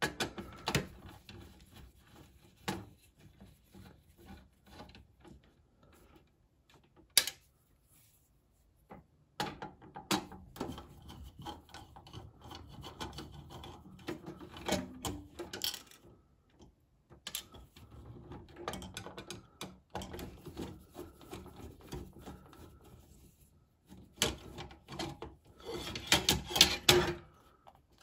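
Hand screwdriver undoing the screws that hold a hard drive in a Lenovo ThinkStation's steel drive cage: on and off scraping and rubbing of metal with light clicks, and one sharp click about seven seconds in. Near the end comes a louder stretch of rattling and handling as the drive is worked out of the cage.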